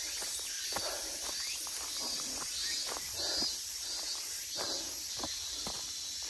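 A hiker's footsteps on a forest trail, a step about every half second, over a steady high-pitched hiss.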